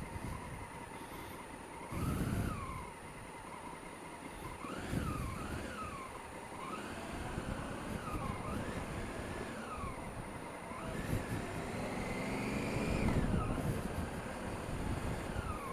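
Honda Africa Twin CRF1000L's parallel-twin engine pulling away and backing off again and again in stop-and-go traffic, its pitch rising and falling every second or two, with a longer rise near the end.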